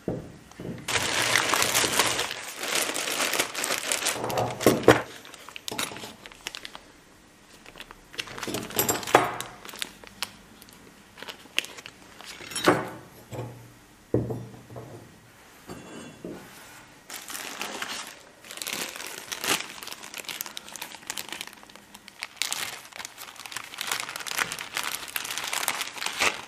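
Clear plastic bags crinkling and rustling in irregular stretches while parts are taken out and handled, with several sharp knocks as hard parts are set down.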